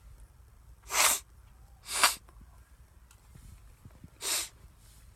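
Three short, sharp blasts of breath through a man's nose, the first two a second apart and the third about two seconds later, his nose irritated by cayenne pepper.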